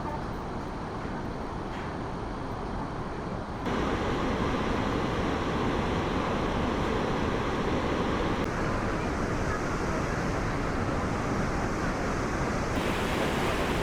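Steady roar of the Devil's Throat (Garganta del Diablo) waterfall at Iguazú Falls, a dense rushing of falling water. It changes abruptly in loudness and tone three times as the shots cut.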